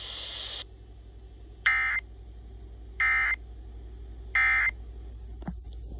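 Emergency Alert System end-of-message signal: three short, loud, buzzy digital data bursts, evenly spaced about a second and a half apart, marking the close of the alert. A steady hiss cuts off just before them.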